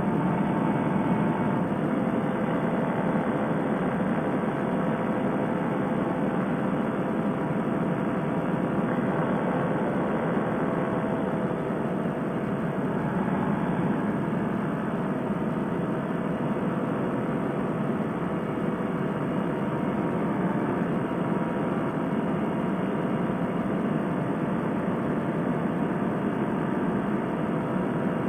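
Fresh Breeze Monster paramotor engine and propeller running steadily in flight, one even drone with no change in pitch.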